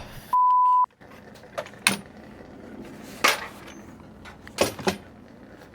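A half-second steady beep, a single pure tone, as used to censor a word. Then a few sharp knocks spaced out over the following seconds, fitting blows driving a steamed wooden frame into a boat hull.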